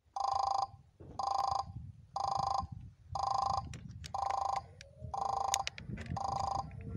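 Level crossing warning signal sounding a repeated electronic ding, about one tone a second, each tone lasting about half a second.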